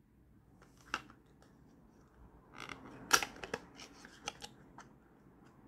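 A small cardboard perfume box being handled and opened by hand: a scatter of short clicks and paper scrapes from its flaps, the sharpest just after three seconds in.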